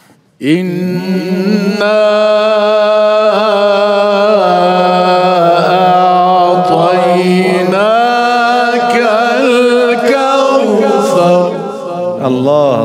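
A man reciting the Quran in the melodic, sung style, holding one long ornamented phrase with gliding turns of pitch. The phrase starts about half a second in and trails off just before the end.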